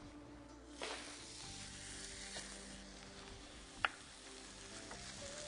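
Thin, pounded chicken fillet sizzling on a hot, oiled electric grill plate. The sizzle starts about a second in as the meat meets the plate and then holds steady. A single sharp click is heard about four seconds in.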